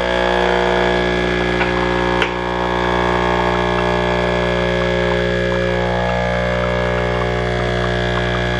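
Home espresso machine's pump running with a steady buzzing hum while it pulls a shot of espresso into a mug, with a light click about two seconds in.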